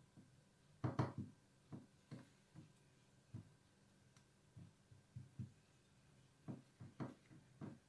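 Silicone spatula stirring flour in a ceramic bowl: faint, irregular knocks and scrapes of the spatula against the bowl, the loudest about a second in.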